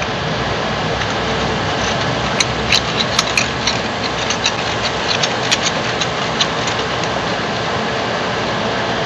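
Steady whir of the 3D printer's cooling fans, with scattered light clicks and ticks as the plastic filament is threaded into the extruder inlet.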